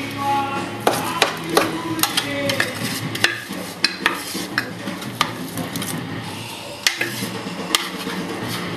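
A spoon scraping and tapping against a bowl as buttery biscuit crumbs are scooped into a cake tin, giving irregular sharp clicks and knocks.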